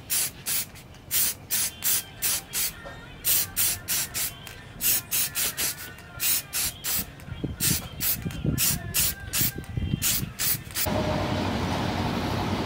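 Aerosol spray can hissing in short, quick puffs, about two or three a second, as a coating is sprayed onto a knife blade and handle. About 11 s in the puffs stop and a steady background hiss takes over.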